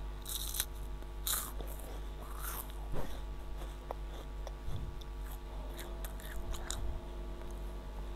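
A child chewing a crunchy snack close to the microphone, with irregular crisp crunches between quieter chewing.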